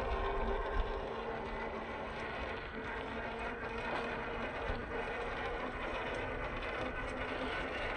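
Boom Racing BRX02 Land Rover 88 Series III scale RC crawler driving: a steady low whir of its small electric motor and gears, with the rustle of tyres and outdoor noise.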